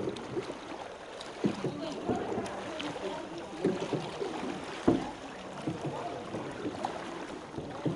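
Floodwater sloshing and splashing as several people wade through it pushing an inflatable boat. The splashes come irregularly, with the loudest one about five seconds in.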